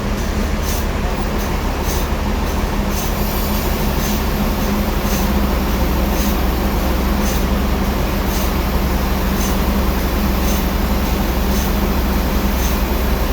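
Sawmill saw running steadily with a low hum and a light tick about once a second.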